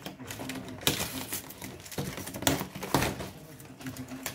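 Packing tape being ripped off a cardboard box in several short, irregular rasping tears, with the cardboard rustling as it is handled.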